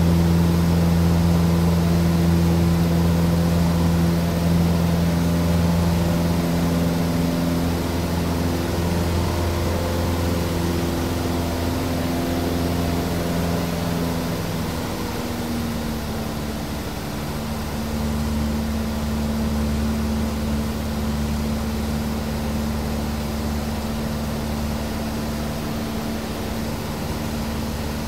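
Cessna 150's single piston engine and propeller droning steadily, heard from inside the cabin in flight. About halfway through the engine note shifts and then settles to a new steady note.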